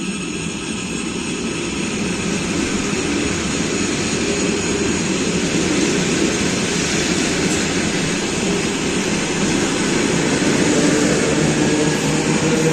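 Train approaching along the line: a steady rumble that grows louder, with a faint whine rising slightly in pitch near the end.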